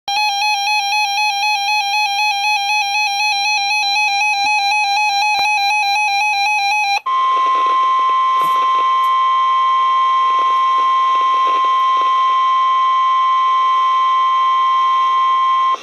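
An electronic alert tone warbling rapidly for about seven seconds, followed by the NOAA Weather Radio 1050 Hz warning alarm tone held steady until it cuts off near the end. The alarm tone signals that an urgent weather bulletin, here a tornado watch, is about to be broadcast.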